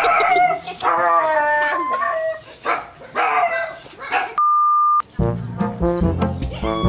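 A dog barking and yelping among people's voices, startled by the box prank. About four and a half seconds in this gives way to a short, steady electronic beep, followed by background music with a steady beat.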